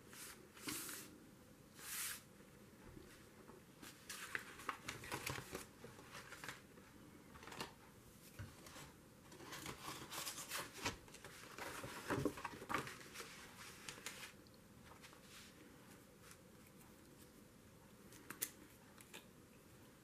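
Paper rustling and crinkling as sheets and a folded paper brochure are handled and opened out on a tabletop, in scattered short bouts with a few light taps.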